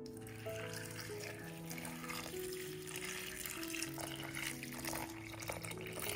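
Cold water pouring in a thin stream into a glass bowl of cubed raw potatoes, splashing and filling steadily around the cubes. Soft background music with held notes plays alongside.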